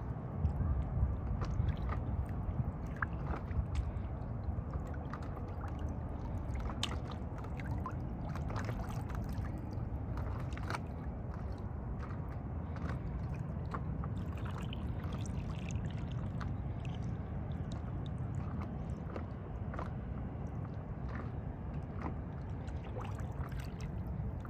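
Water lapping and splashing against a paddleboard's hull, with many small irregular splashes over a steady low rumble.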